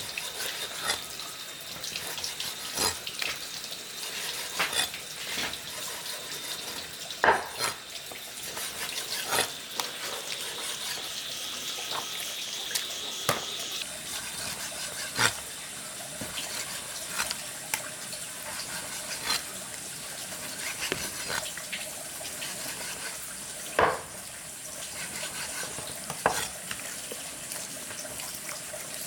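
Meat-preparation sounds: scattered knocks and clinks every second or two, a few of them sharper, over a steady hiss.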